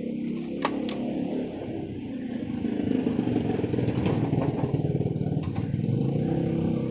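A motor vehicle engine running close by, growing louder about two and a half seconds in and staying steady after that. Two sharp clicks come in the first second.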